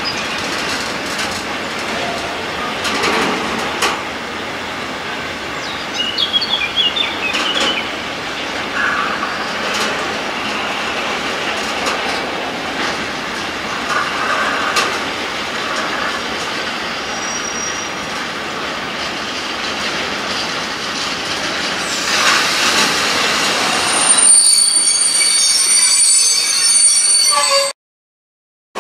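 Container freight train rolling past, its wagons rumbling and clattering on the rails with brief high metal squeals, and a steady high squeal about three seconds before the end. The sound cuts off abruptly about a second before the end.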